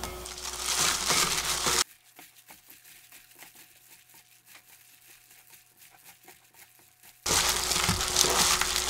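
A kitchen knife blade scraping chopped onion into a glass bowl, then a plastic-gloved hand tossing cucumber kimchi with its chilli seasoning in a glass bowl: crinkling plastic and wet squishing. About two seconds in the sound drops to faint crackles, and it comes back louder a second or two before the end.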